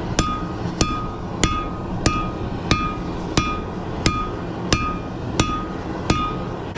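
Blacksmith's hammer striking hot rebar on an anvil in a steady rhythm, about ten blows roughly two-thirds of a second apart, each with a short metallic ring, as the bar is drawn out thinner. A steady low rumble runs underneath.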